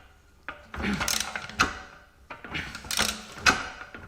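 Ratchet wrench clicking through repeated strokes on the forcing screw of a ball joint separator, metal tool on metal. It begins after a brief quiet start.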